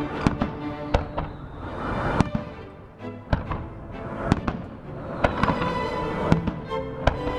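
Fireworks salute shells bursting: a dozen or so sharp bangs at uneven intervals.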